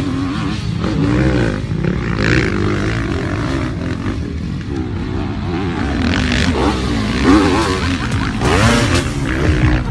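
Several motocross bike engines revving hard, overlapping, with the pitch rising and falling as the throttles open and close.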